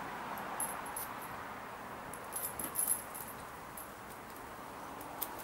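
Metal tire chain links clinking and jingling in short bursts as a snowblower tire chain is pulled tight and hooked, with a small cluster of clinks about two and a half seconds in and another single clink near the end.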